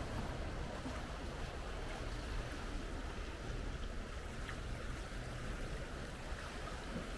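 Steady seaside ambience: wind rushing over the microphone with a low rumble, and sea waves washing against a concrete tetrapod breakwater.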